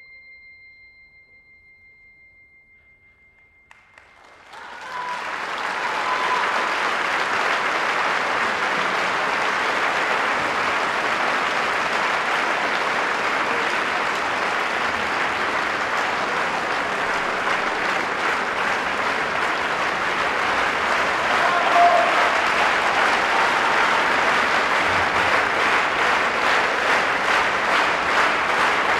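The last held notes of the music die away. About four seconds in, a theatre audience breaks into applause that goes on, dense and steady.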